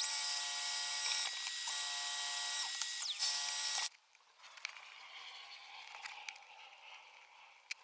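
Benchtop drill press running with a steady high motor whine as it drills through a workpiece, cutting off abruptly about four seconds in. After that only faint clicks and handling noise remain.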